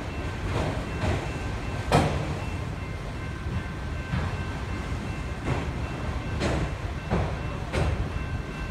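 Norfolk Southern autorack freight cars rolling slowly over a grade crossing: a steady low rumble broken by irregular clacks and clanks of wheels and cars, with one sharp bang about two seconds in.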